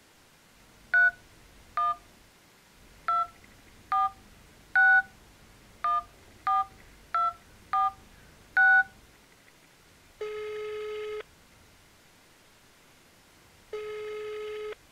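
A phone number being dialed: ten short touch-tone keypad beeps at an uneven pace, each two tones together. Then the line rings twice, two long steady ringback tones about a second each, a few seconds apart, while the call waits to be answered.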